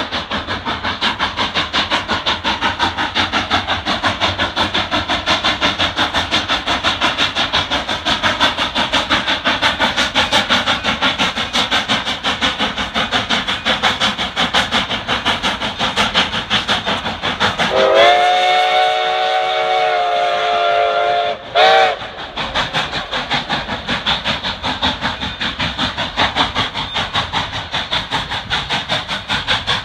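A Denver & Rio Grande Western K-36 class 2-8-2 narrow-gauge steam locomotive working a train, with a steady, rapid chuff of exhaust beats. About eighteen seconds in it blows its steam whistle: one long blast of several seconds, then a short toot.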